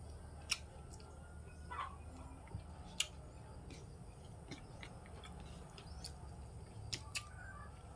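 Quiet eating sounds of two people eating rice noodles with their hands: a few sharp mouth clicks, two of them close together near the end, and a short falling squeak about two seconds in, over a faint low hum.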